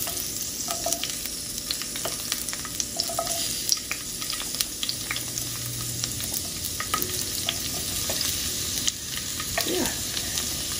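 Diced bell peppers and onions dropping off a wooden cutting board into hot vegetable oil in a cast iron skillet: a steady sizzle of frying, with many scattered crackles and ticks as pieces land.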